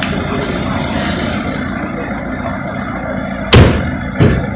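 Car engine idling steadily, with two sudden loud thumps about half a second apart near the end, the first louder.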